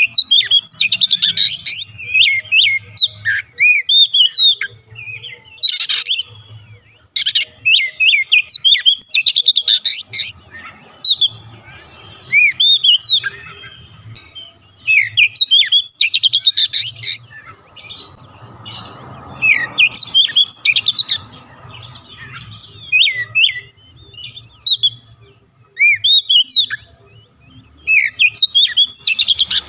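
Oriental magpie-robin singing loudly, in repeated phrases of rising and falling whistles mixed with harsh rattling chatter, with short pauses between phrases.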